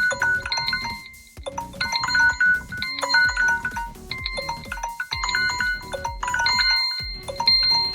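Smartphone alarm or timer tone: a short melody of bell-like chiming notes, played over and over every second or two.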